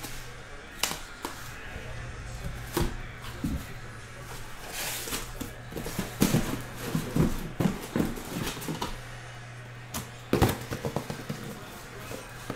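Cardboard shipping case being handled and emptied: rustling and scraping of cardboard, with scattered knocks and thuds as the shrink-wrapped boxes inside are moved and set down.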